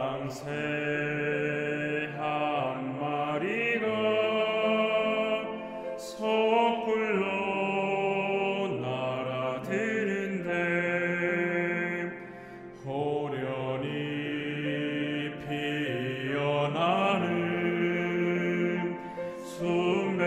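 Male vocal ensemble singing a Korean Buddhist hymn in sustained phrases, with a short break about twelve seconds in before the next line.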